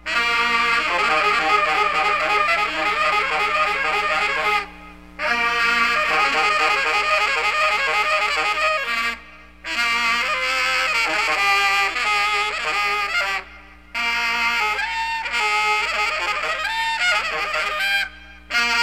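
Free-jazz ensemble led by saxophone playing dense, fast, squealing phrases over steady low tones. Four brief pauses break the playing, roughly every four to five seconds.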